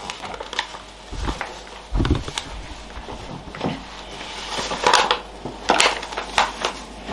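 Paper flour bag crinkling and rustling as rye flour is shaken from it into a plastic mixing bowl, with two dull thumps at about one and two seconds in.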